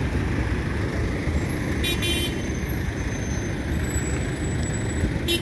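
Street traffic noise, a steady rumble, with a brief high-pitched toot about two seconds in.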